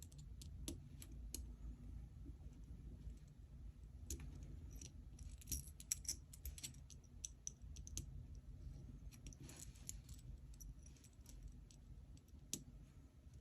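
KTS Gear Storm aluminium gear fidget being worked by hand: faint, irregular metallic clicks and small clatters of metal parts, coming in loose clusters.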